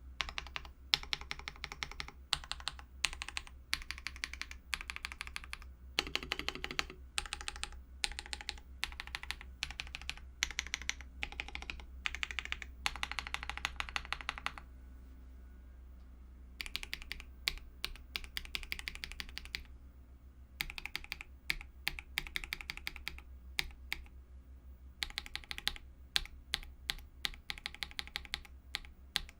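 Typing on a mechanical keyboard fitted with lubed Akko CS switches: fast runs of keystrokes, with pauses of a second or two between runs.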